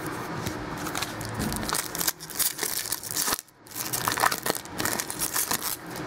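Foil trading-card pack wrapper being torn open and crinkled by hand: irregular crackling rustles, with a short break a little past halfway.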